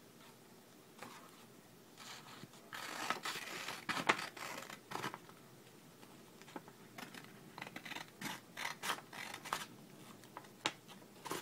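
Scissors cutting paper: short snips and paper rustling, with a scattered run of sharp snips in the second half.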